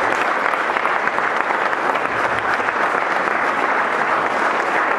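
Crowd applauding, a dense, steady clapping that holds at the same level throughout.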